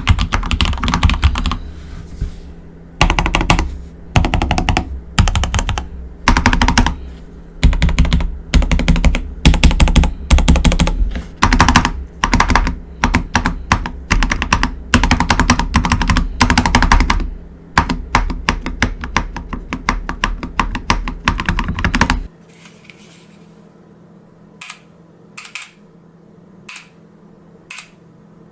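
Mechanical keyboard with lubed Gateron Yellow linear switches being typed on in fast bursts of key presses with short pauses between. About 22 seconds in the recording switches from a Blue Yeti microphone to a camera's onboard microphone, and only a few scattered, fainter key presses follow.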